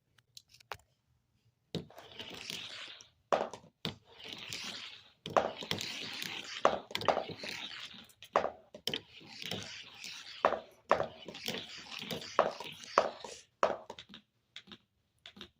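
A marble rolling and clattering through a homemade marble run: stretches of rolling rattle about a second or two long, each set off by a sharp click, with a few short pauses between them.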